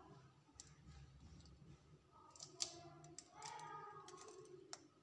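An egg cracked on the rim of a plate and poured over marinated fish pieces: a few sharp clicks and taps, the loudest about halfway through, against near silence.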